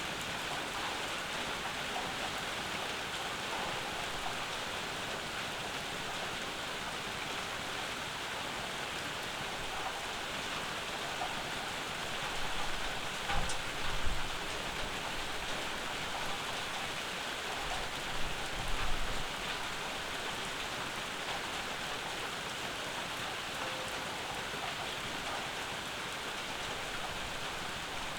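Steady summer rain falling on a porch and yard. Two short low rumbles stand out, about halfway through and again about two-thirds through.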